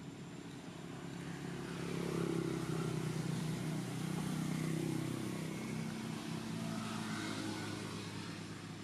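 A motor vehicle's engine passing nearby, building up over the first two seconds, holding for a few seconds, then fading away.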